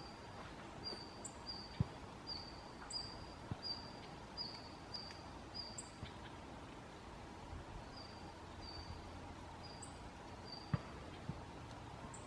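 Red-flanked bluetail giving its call notes: a string of short, high, single-pitched notes about two a second, a gap of a couple of seconds, then four more. A few low knocks stand out, the loudest about two seconds in and near the end.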